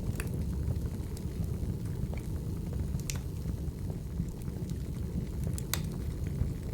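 Wood fire burning in a fireplace: a steady low rumble of the flames with scattered sharp crackles and pops from the burning logs, the loudest about three seconds in and near the end.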